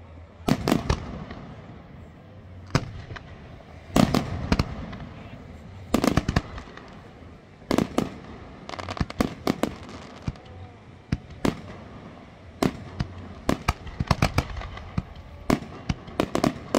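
Aerial fireworks shells bursting, a sharp bang every second or two, each with a brief echo. The bangs come thicker and quicker near the end, with clusters of crackling smaller reports.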